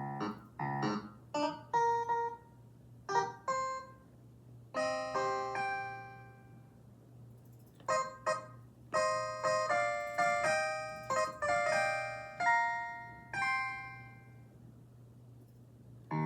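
Roland FP-30 digital piano playing a plucked, guitar-like voice from its built-in sounds: short chords at first, then melody notes and chords that ring and fade, with a pause of about a second in the middle. A faint steady low hum sits underneath.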